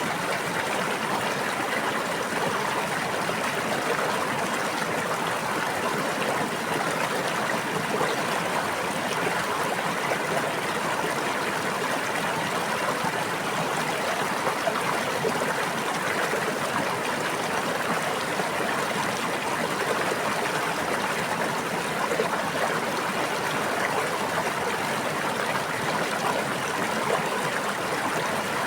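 A brook babbling and trickling steadily, with no break or change.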